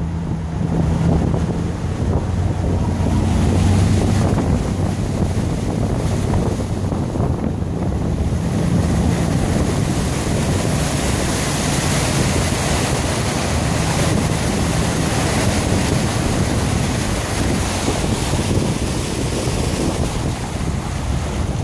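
Lifted Ford F-250 turbo diesel pickup driving through deep floodwater: the engine's steady low drone under a loud rushing hiss of water spray thrown up by the tyres, with wind buffeting the microphone.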